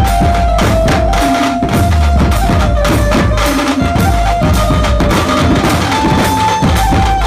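Dhumal band music: dense, loud drumming with a heavy bass drum under a held, high melody line that moves in steps between a few notes.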